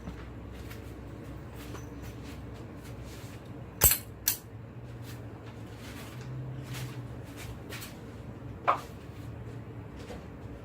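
Sharp clicks and knocks from handling a cordless-tool battery and adapter: two loud clicks about four seconds in and another near nine seconds, with fainter ticks, over a low steady hum.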